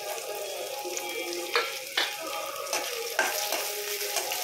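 Sliced onions and green chillies sizzling in hot mustard oil in a kadhai, with a few sharp knocks and scrapes of a metal spatula against the pan as they are stirred.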